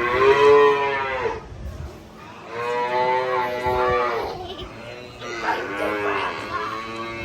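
Dairy calf mooing: three long calls, each rising and then falling in pitch, from a hungry calf calling to be fed.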